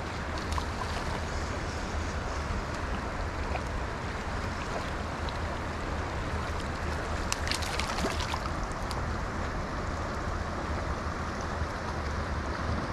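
River water rushing steadily over a shallow riffle, an even hiss with a low rumble beneath it. A brief burst of sharp clicks comes about seven and a half seconds in.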